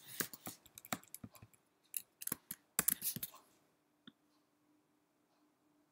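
Typing on a computer keyboard: quick, irregular key clicks for about the first three and a half seconds, then the typing stops.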